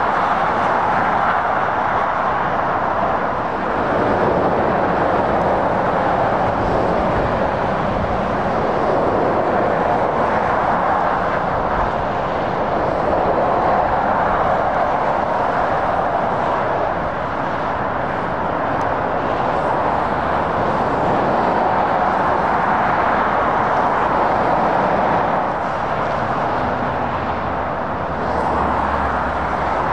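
Steady noise of motorway traffic, lorries and cars passing at speed, mostly tyre noise that swells and ebbs slowly as vehicles go by.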